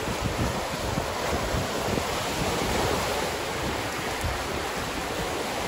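Small wind-driven lake waves breaking and washing over a stony, pebbly shore, a steady rushing, with gusty wind buffeting the microphone.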